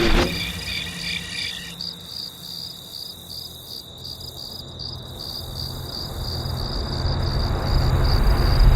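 Crickets chirping in a steady, evenly pulsing high trill, with a low rumble that grows louder toward the end.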